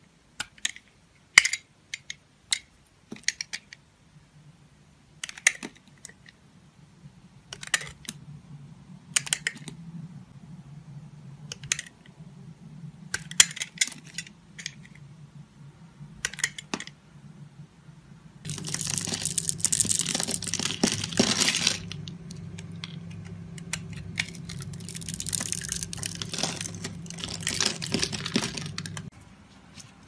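Snap-off utility knife blade cutting into a bar of translucent soap: a series of sharp, crisp cracks as the blade scores and breaks through the soap. About two-thirds of the way in, this turns into a dense, continuous crackling scrape lasting about ten seconds, with a low hum underneath.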